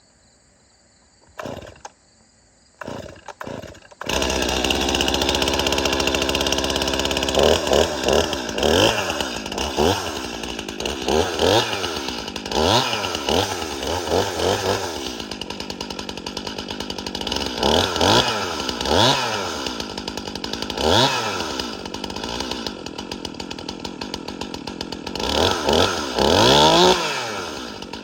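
Stihl MS261C two-stroke chainsaw, with an M-Tronic electronic carburetor, being started from cold: it fires about four seconds in and runs steadily. From about seven seconds in it is revved up and down over and over as it warms up.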